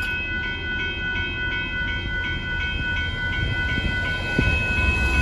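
Railroad grade-crossing warning bell ringing fast and steadily, about three strokes a second, over a low rumble that grows louder near the end.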